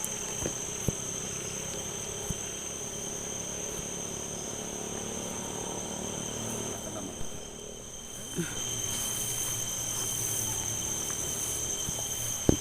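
Steady chorus of night insects, crickets among them, shrilling on two high unchanging tones. A few soft knocks stand out now and then.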